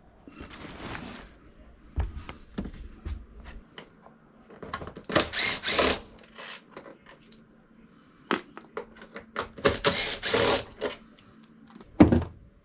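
Tool and part handling on a motorcycle: scattered clicks and knocks, two longer scraping, rattling noises about five and ten seconds in, and a sharp knock near the end.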